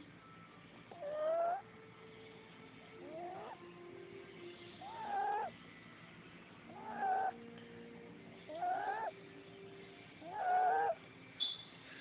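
Sleeping puppy snoring in high, squeaky pitched tones, one snore about every two seconds, six in all.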